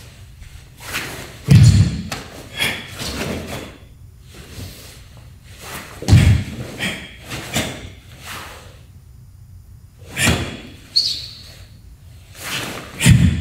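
Bare feet stamping on a wooden floor as a karateka shifts and plants his horse stance through the Tekki Sandan kata: heavy thuds about a second and a half in, about six seconds in and near the end, with lighter sharp snaps from quick strikes and blocks between them.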